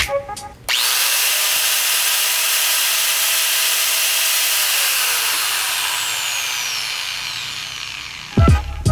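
INGCO AG850383 electric angle grinder switched on abruptly just under a second in, running steadily for about four seconds, then winding down after switch-off with a falling whine and fading level.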